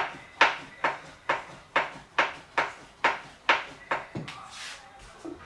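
Small wooden rolling pin knocking on a wooden board about twice a second as dumpling wrappers are rolled out. The knocks stop about four seconds in.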